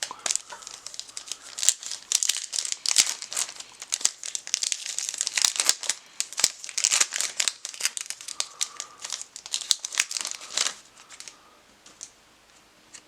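A trading-card pack wrapper being torn open and crinkled by hand, a dense crackling that thins out near the end.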